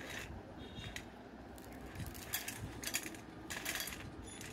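Crisp fried murukulu (rice-flour jantikalu) rattling and clicking against each other and a steel plate as a hand scoops them up and lets them fall. The sound comes as a handful of short dry crackles, the densest about two and a half to four seconds in.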